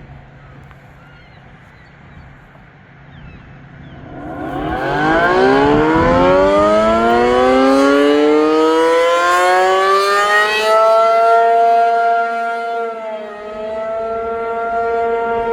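ACA P-50 outdoor tornado warning siren starting up for its Alert signal: about four seconds in it begins winding up, its pitch rising for about six seconds, then it holds a loud steady tone, with one brief dip in pitch and loudness near the end.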